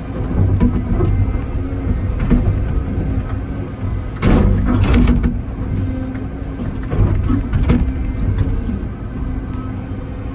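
Excavator digging: the diesel engine and hydraulics are working steadily under load. Over them come sharp scrapes and knocks from the bucket in hard ground, loudest about four to five seconds in and again near eight seconds.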